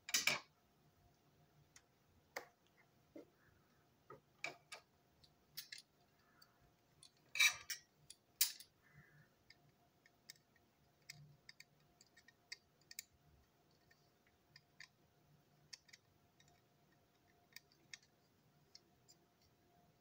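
Plastic parts of a toy train being handled and taken apart: scattered light clicks and knocks, the loudest near the start and around seven to eight seconds in.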